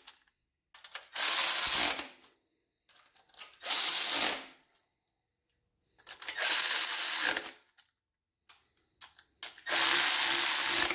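Cordless quarter-inch electric ratchet spinning down exhaust manifold bolts into a small-block Chevy head in four bursts of about a second each, with light clicks between them as the socket is moved. The bolts are being snugged to seat the manifold gaskets, not fully tightened.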